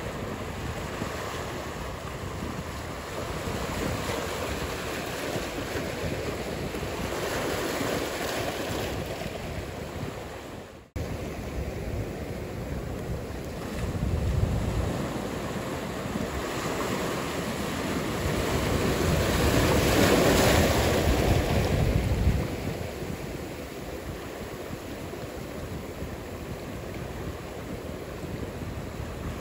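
Ocean surf washing steadily, with waves swelling louder about halfway through and again for a few seconds later on. The sound cuts out sharply for an instant about a third of the way in.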